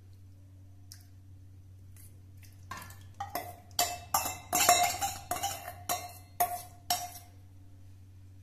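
Steel spoon clinking and scraping against a steel bowl as thick curd is scraped out of it into a steel mixer jar. It is a run of about ten quick metallic knocks with a short ring, starting about three seconds in and stopping about seven seconds in.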